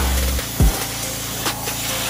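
Background music with a deep, falling kick drum about every half second and a held bass note, over a steady hiss of pressure-washer spray.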